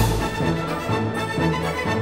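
Music playing with repeating bass notes and a crash-like hit at the very start, rather than the car wash machinery itself.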